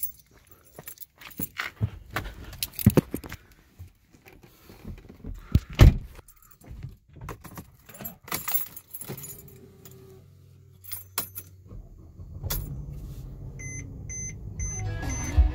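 Keys jangling and clicking as the key of a 2010 Mercedes-Benz E350 Coupe is handled and put in. About twelve seconds in, the V6 engine cranks and catches, settling into a steady low idle. The seatbelt warning chime then beeps repeatedly, about twice a second, because the driver's seatbelt is not fastened.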